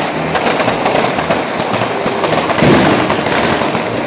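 Mascletà firecrackers going off in a rapid, dense barrage: many sharp bangs a second running together into a continuous crackle, growing a little louder about two-thirds of the way through.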